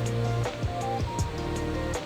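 Background music with a beat: kick drum and hi-hat under sustained melodic notes.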